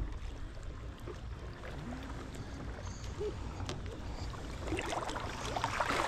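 Calm shallow seawater lapping and splashing around stand-up paddleboards as they are paddled, with a low wind rumble on the microphone. The splashing grows louder and busier near the end.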